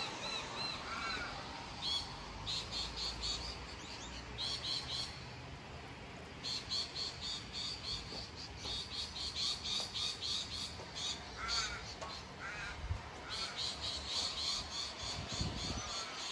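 Steady rain hiss with birds calling over it: one bird repeats short, sharp notes in quick runs of about five a second, and a few lower, curving notes come in about three quarters of the way through.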